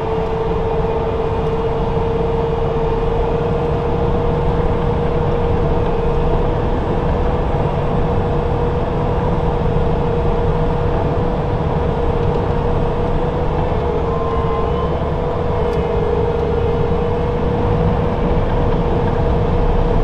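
Track skid steer running at a steady engine speed as it drives along, heard from inside its cab: a constant low rumble with a steady droning tone over it.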